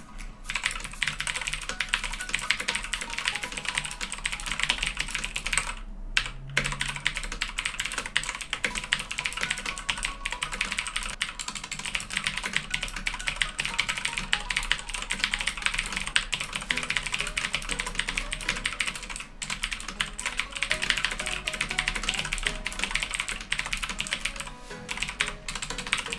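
Fast, continuous typing on a SteelSeries Apex 7 mechanical keyboard with blue clicky switches: a dense stream of sharp key clicks, with a short pause about six seconds in.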